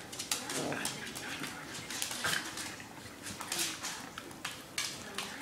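Two dogs play-fighting, one of them a puppy: short dog vocal noises mixed with scuffling and many sharp, scratchy clicks, as of claws on a wooden floor.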